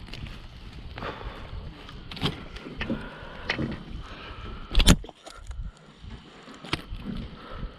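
Scattered knocks and clicks of handling on a small fishing boat, with one loud thump about five seconds in, over a low rumble of wind on the microphone.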